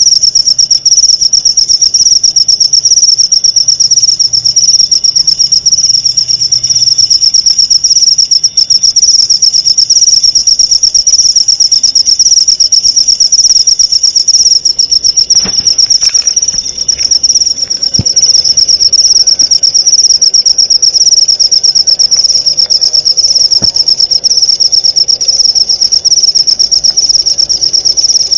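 A singing insect trilling continuously, a loud, high-pitched song of rapid, even pulses. A few faint knocks sound around the middle.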